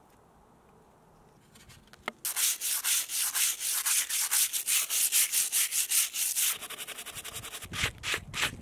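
Sandpaper rubbing back and forth over carved wood, starting about two seconds in with loud, even strokes at about four to five a second, then turning to quicker, lighter strokes near the end.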